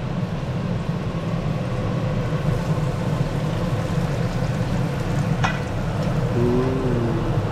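Beer-and-vodka-battered cobia pieces deep-frying in a pot of hot oil, a steady sizzle over a low steady hum. A single sharp click comes about five and a half seconds in.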